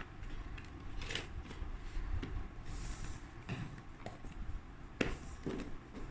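Packaging and small kit items being handled: a few light knocks and clicks, with a brief rustle about three seconds in.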